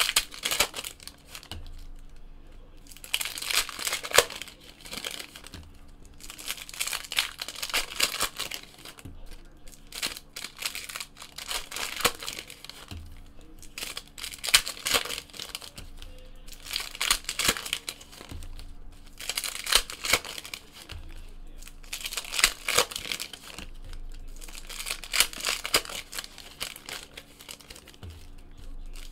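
Foil trading-card pack wrappers crinkling and tearing as packs are ripped open one after another, in repeated crackly bursts every two to three seconds.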